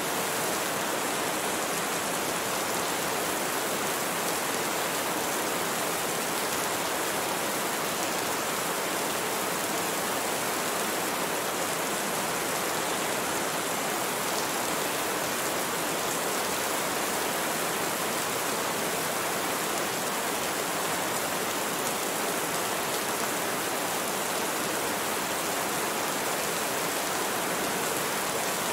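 Steady rain falling, an even hiss that holds without a break or any thunder.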